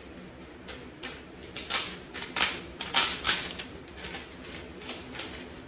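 A run of short, scratchy strokes of a pen or marker writing on paper, the loudest in a quick cluster from about a second and a half to three and a half seconds in, with a few fainter strokes later.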